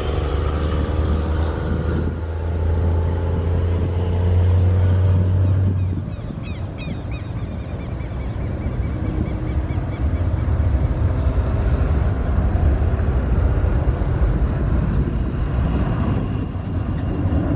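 Boeing 737-800's jet engines rumbling low and steady as it departs after takeoff, easing about six seconds in and building again a few seconds later. A bird chirps several times around the dip.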